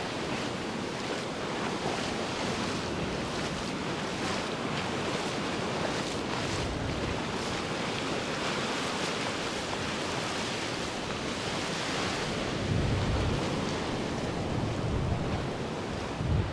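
Ocean surf washing onto the beach, with wind buffeting the microphone in low rumbling gusts.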